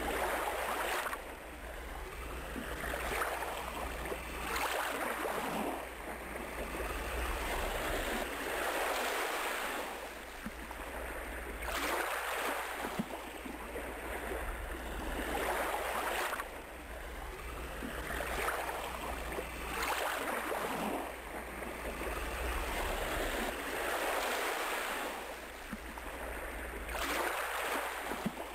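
Ocean surf washing onto a beach, a rushing surge of waves every three to four seconds that rises and falls away, over a steady low rumble.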